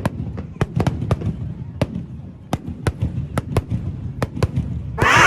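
Fireworks going off at a fireworks display: a quick, irregular series of sharp bangs over a low rumble, then a louder, longer burst near the end.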